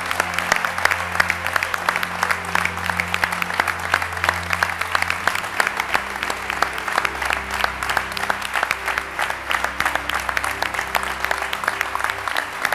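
Audience applauding, a dense steady clatter of clapping, with background music of held low notes underneath.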